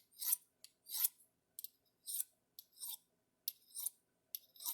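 Pocketknife blade drawn along a diamond-infused honing rod in quick, even strokes. About seven short scrapes come in a steady rhythm, one every three-quarters of a second or so.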